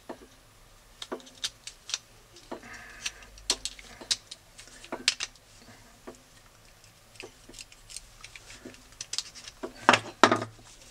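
Irregular small clicks and taps from a plastic camera quick-release mount fitted with spring strips, handled and turned over in gloved hands. A couple of louder knocks come near the end as it is set down on the workbench.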